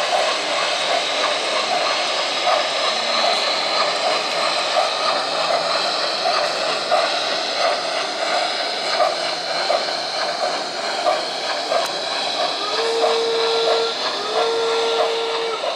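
Steam railway sounds: a steady steam hiss with a regular clicking like wheels over rail joints, then near the end two whistle notes of about a second each on the same pitch.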